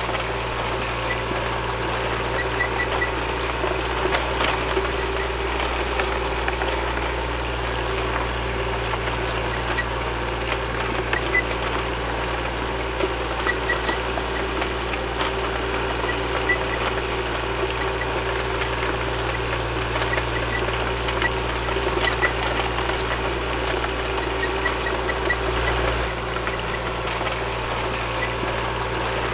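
Tank engine sound effect running steadily: a constant low rumble with dense rattling clicks throughout, and brief high chirps now and then.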